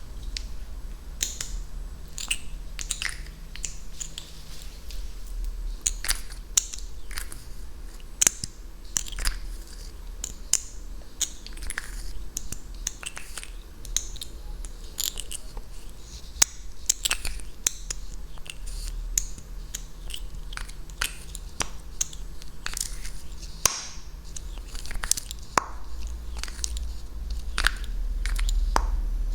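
Close-miked ASMR mouth sounds: a long run of wet, irregular mouth clicks and smacks with no words.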